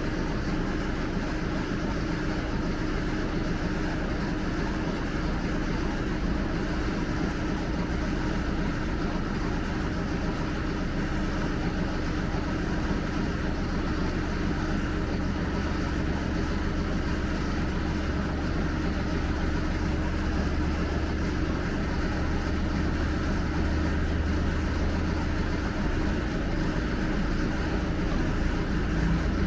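Steady low machine hum that drones evenly throughout and grows slightly louder and deeper in the last several seconds.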